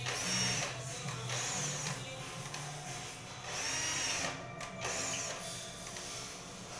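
Power drill run in about five short bursts, its motor whining up and winding down each time, drilling into the ceiling to mount a window-blind bracket.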